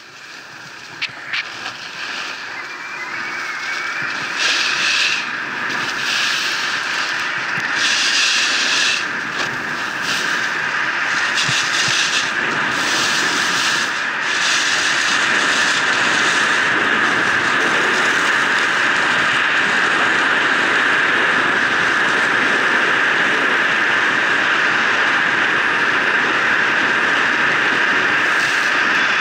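Wind rushing over an action camera skiing downhill, building as speed picks up and then steady. Through the first half, skis scrape the packed snow in short hissing bursts with each turn, and a couple of sharp knocks come about a second in.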